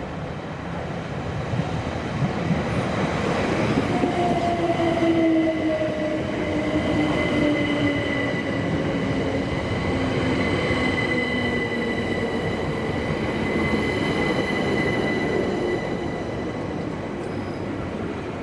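Southern Class 377 Electrostar electric multiple unit arriving and slowing to a stop, its traction motors giving a slowly falling whine as it brakes. A steady high squeal runs through the middle, over the rumble of wheels on rail.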